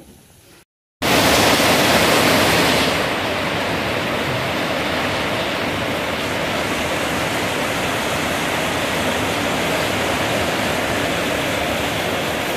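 Heavy rain falling in a steady downpour. It starts abruptly about a second in and is a little louder for the first two seconds.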